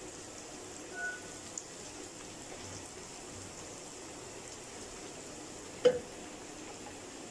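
Eggplant slices shallow-frying in oil in a pan: a steady, soft sizzle, with one sharp clack just before six seconds in.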